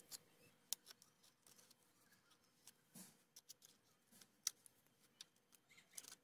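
Compound-lever tin snips cutting into vinyl J-channel: faint, sharp snips and clicks at irregular intervals as the blades close on the plastic.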